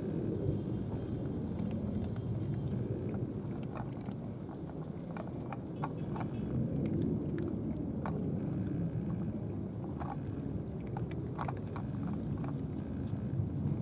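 Cats crunching dry kibble: irregular sharp little clicks, over a steady low rumble.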